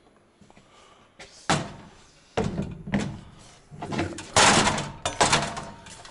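Aluminium ladder being moved and handled: a few sharp knocks starting about a second and a half in, then a louder metallic clatter near the end.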